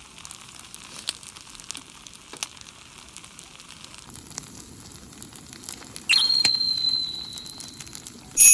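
Food sizzling and crackling in a hot pan, with scattered small clicks. About six seconds in, a loud steady high tone starts suddenly and holds for a second and a half. Near the end, a brighter ringing tone with several pitches starts.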